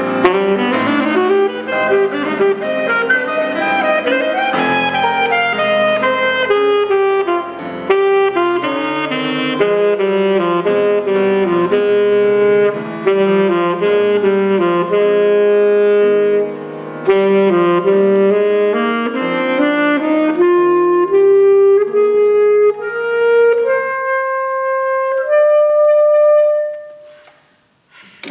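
Alto saxophone playing a classical solo with piano accompaniment. Later, the saxophone holds a rising series of long single notes, then stops briefly just before the end.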